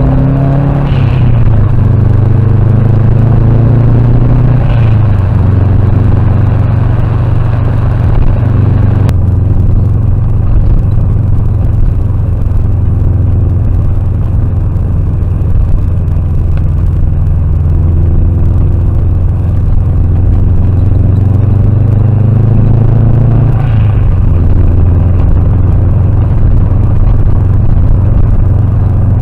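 Car engine and tyre noise heard inside the cabin through a dashcam's built-in microphone while driving: a steady low hum, with the engine note rising and falling a few times. The sound changes abruptly about nine seconds in, at an edit between recordings.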